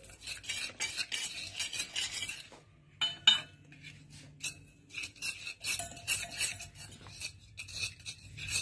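A spoon stirring and scraping against a stainless steel bowl, mixing flour and milk into cake batter. The strokes are quick and rhythmic. They pause about two and a half seconds in, a sharp knock on the bowl comes just after three seconds, and stirring starts again near the six-second mark.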